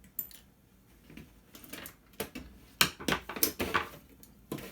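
Light metallic clicks and clatter from the thin sheet-metal casing and small parts of a DVD player being handled and pried apart during disassembly, with a quick run of rattling knocks about three seconds in.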